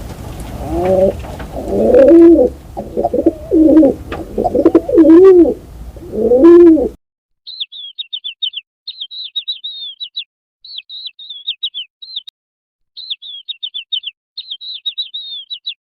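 A pigeon cooing, about six low calls with a rise and fall in pitch. About seven seconds in the sound cuts to a small bird chirping quick runs of high notes in repeated phrases with short pauses between.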